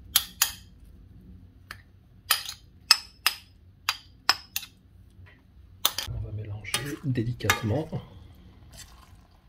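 A metal spoon clinking sharply against a ceramic bowl about ten times in the first five seconds as prawns are scooped out into a pan. Near the end, a utensil stirring rice and seafood in a metal pan.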